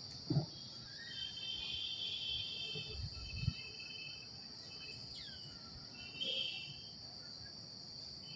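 Steady high insect drone, with short high chirping bouts about a second in and again near six seconds, a single falling call around five seconds in, and a couple of soft thumps.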